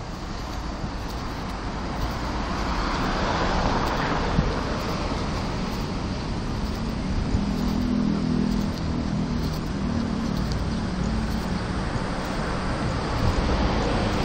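Road traffic: steady noise of cars and light trucks, with a car passing about three to four seconds in and a low vehicle engine drone through the second half.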